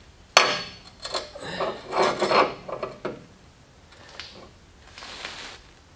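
Handling noise as a piece is held and shifted against the car's front subframe: a sudden scrape about half a second in, then a few seconds of uneven rubbing and scraping, fainter near the end.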